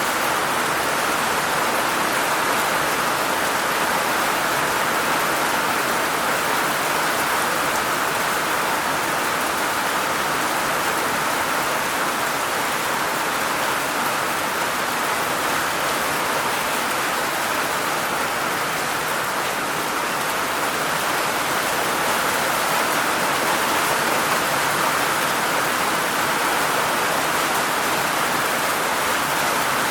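Heavy rain falling steadily: an even, unbroken hiss of rain on surfaces.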